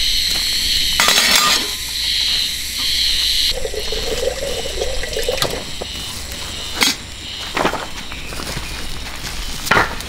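Water running from a water jar into a stainless steel kettle for about two seconds, then a few light metallic clinks as the kettle is handled.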